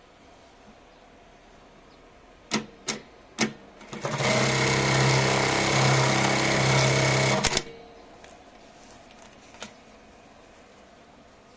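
JAGKING 1900 computerised bartack machine. There are three sharp clicks, then the machine runs for about three and a half seconds sewing its box-with-cross stitch pattern, and stops with a sharp double click.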